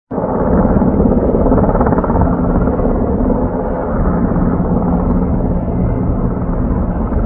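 Firefighting helicopter's rotors and engines running steadily: a continuous rumble with a low hum.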